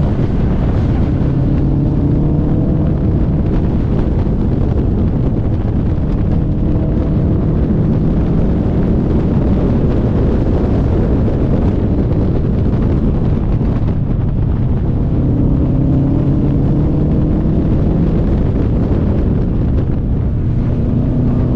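Car engine pulling through a run of corners, its note climbing slowly several times as the throttle is worked, under heavy wind and road noise.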